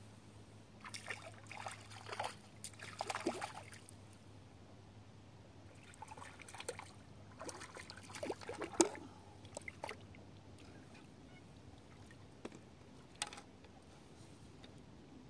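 A small yellow perch splashing at the water's surface as it is pulled in on a fly line, in two flurries of short splashes, the sharpest near the end of the second. A couple of small clicks follow as the fish is lifted out.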